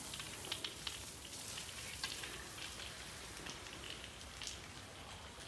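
Raindrops ticking and pattering on surfaces: many small scattered drips over a faint steady hiss.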